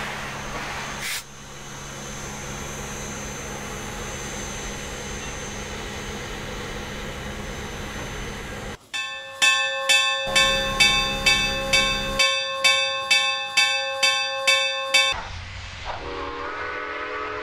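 Steam locomotive No. 4960 venting steam with a steady hiss. After a sudden change about nine seconds in, its chime whistle sounds over rhythmic exhaust chuffs, about two a second, for some six seconds. Near the end a second, lower whistle tone follows.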